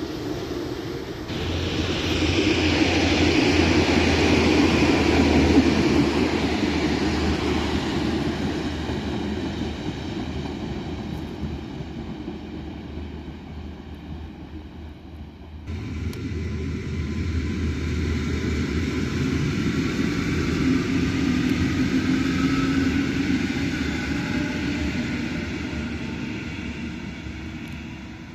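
EN57AL electric multiple unit running past on the line, a rumble with a low steady hum that swells and then fades away. About halfway through, an abrupt cut brings a second EN57AL passing, with a rising and falling whine over the rumble.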